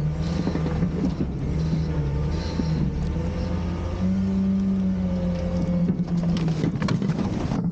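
Garbage truck's engine running with its hydraulics working to dump a trash bin; the engine note steps up about four seconds in, with a fainter whine gliding up and down, and a few sharp clanks come near the end.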